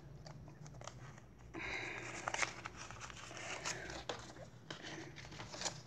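Banknotes being handled and counted by hand: faint rustling and crinkling of the notes, with small scattered ticks and a slightly louder rustle about two seconds in.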